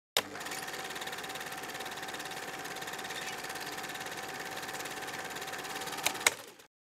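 Film projector running: a steady mechanical whir with a fast, even flutter and a faint hum. It starts with a sharp click, gives two more clicks near the end, and cuts off suddenly.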